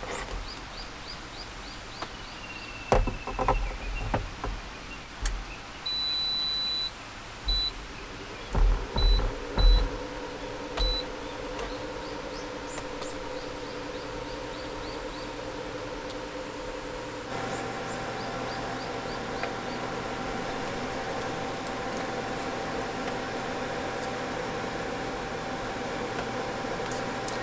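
Portable induction cooktop: one long beep, then several short beeps as its controls are set. Then its steady electric hum and fan start, louder and a little higher about halfway through as it heats the pan. Knocks of a metal frying pan and lid being set down come before the beeps and among them.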